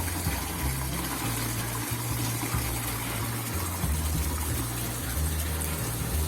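Steady running water, as a washing machine part is rinsed clean under the flow.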